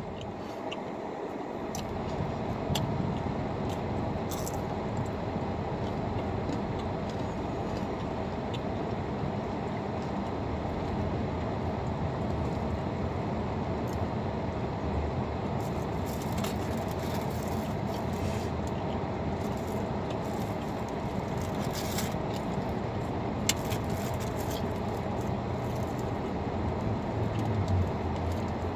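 Steady road and engine noise inside the cabin of a moving car, with a few small clicks scattered through it.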